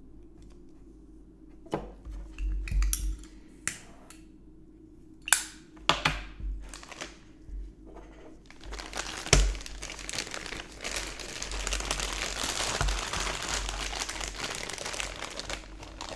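A few sharp knocks and clicks, then from about eight seconds in, continuous crinkling of a plastic sleeve of petri dishes being handled.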